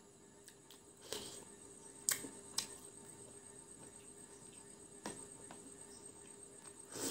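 Plastic spoon clicking and scraping against a plastic soup bowl while stirring and scooping: about five light, separate clicks over several seconds, above a faint steady hum.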